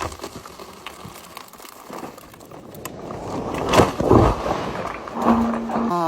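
Crackling, crunching handling noise with a couple of louder scraping rushes, then a chainsaw engine starts up just before the end and runs with a steady pitched drone.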